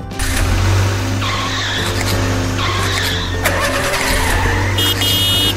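Cartoon sound effect of a vehicle engine running, with three tyre-skid squeals in the middle, over children's background music.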